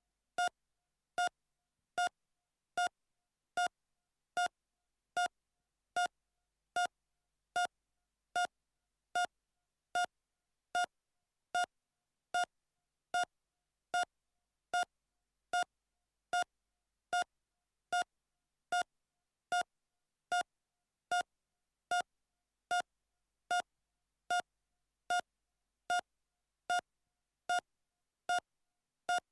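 Heart monitor beeping at a normal heart rate: short, identical single-pitched beeps evenly spaced about 0.8 s apart, around 75 a minute.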